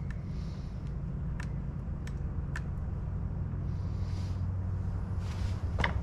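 A few light, sharp clicks from handling a motorcycle's aftermarket shift linkage as its position is adjusted, with a louder click near the end, over a steady low hum.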